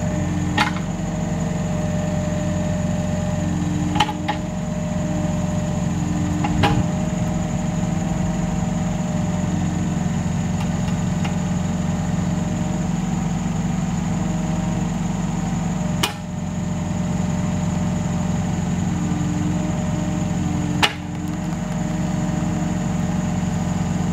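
Mini excavator engine running steadily, with a higher hum that comes and goes and a few sharp knocks now and then.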